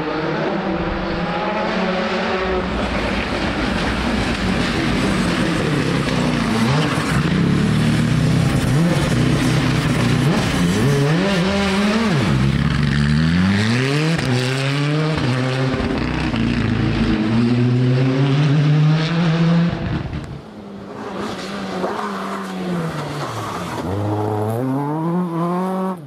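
Rally car engines driven hard, the pitch climbing through each gear and dropping at each change and under braking, as a Hyundai rally car passes. About twenty seconds in the sound drops away abruptly, and a second rally car's engine is heard climbing in pitch as it approaches.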